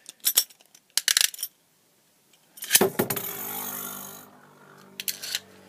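A few sharp clicks, then, after a short pause, a fake Wing Pegasus Beyblade on its Eternal Sharp tip is launched into a plastic stadium. It lands with a clatter and spins with a steady whir that drops to a softer hum with an occasional tick.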